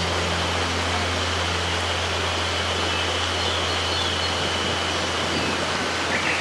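Mountain river rushing over rocks, a steady even hiss of flowing water, with a steady low hum underneath.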